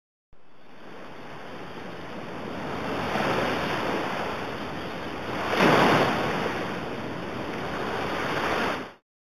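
Ocean surf rushing and breaking, building through the first half and loudest as a wave breaks a little past the middle. It starts and ends abruptly.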